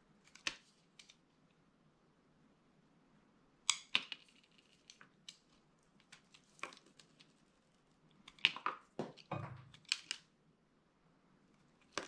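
Utility knife blade cutting into a hard bar of soap: scattered crisp crunches and cracks as slivers break away, with a dense run of crunching and a short scrape about eight to ten seconds in.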